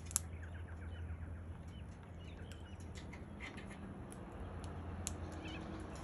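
Young crimson rosella pecking at and cracking seeds with its beak, a scatter of short sharp clicks. Faint bird chirps and a low steady hum sit underneath.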